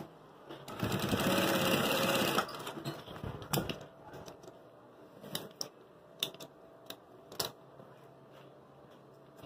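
Industrial sewing machine running a short burst of stitching, about a second and a half long, then stopping. A few separate sharp clicks follow.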